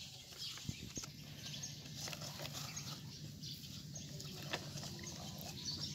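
Birds chirping faintly, with a few scattered clicks and scrapes from a plastic toy excavator being worked in sandy dirt.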